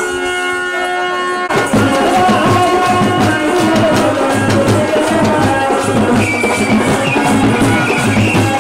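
Telugu kolatam folk music: a held chord for about a second and a half, then drums and a steady percussive beat come in under a melody.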